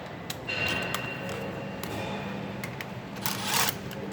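Metal hand tools clicking and scraping against an engine-bay fitting as it is tightened down, with a short loud burst of noise a little over three seconds in.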